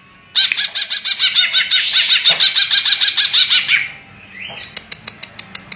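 Cucak ijo (green leafbird) singing a loud, fast run of rapidly repeated chattering notes for about three and a half seconds. A string of sharp clicks follows near the end.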